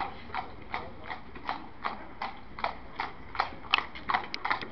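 Hooves of a feathered cob clip-clopping on a tarmac road at a trot, an even beat of about three strikes a second that grows louder and busier near the end as the horse comes closer.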